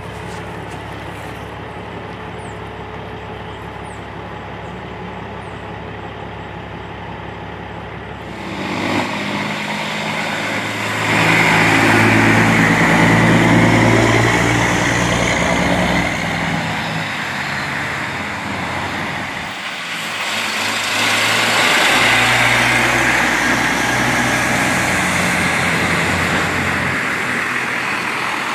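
Heavy-duty wrecker's diesel engine running steadily, then growing loud a third of the way in as it passes close by under load, towing a fire engine on its underlift. A second heavy truck engine passes loudly later on.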